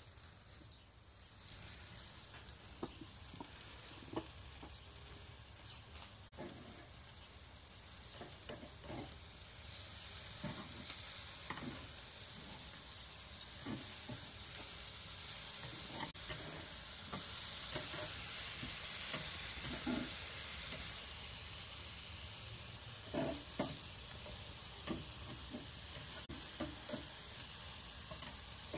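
Chicken thighs sizzling over high heat on the grate of a Char-Griller Akorn kamado grill: a steady hiss that swells about a second in as the lid comes up, with scattered small pops and clicks.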